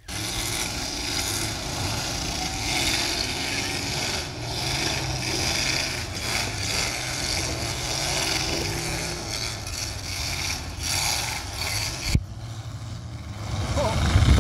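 Demolition derby cars' engines running and revving together in the arena, with one sharp bang about twelve seconds in.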